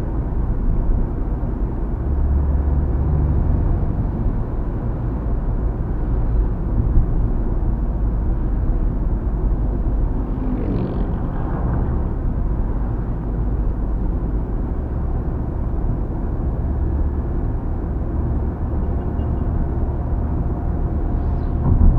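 Steady road and tyre noise inside a Mitsubishi Xpander's cabin at highway speed on smooth asphalt, a low rumble with little wind noise, the door gaps having been sealed with rubber door seals. It swells briefly about halfway through.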